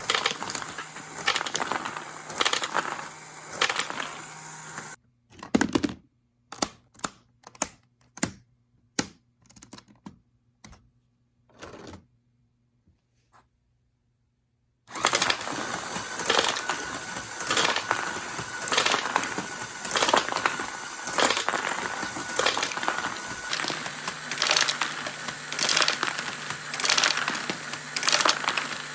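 Plastic Lego machine gun firing: a fast, continuous clattering and clicking of plastic parts. A few seconds in it slows to about a dozen separate clicks, roughly two a second, then runs fast again from about halfway through.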